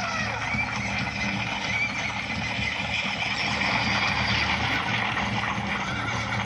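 Show soundtrack effects of cavalry on the move: horses neighing over a dense, continuous clatter of hooves. A neigh rises and falls near the end.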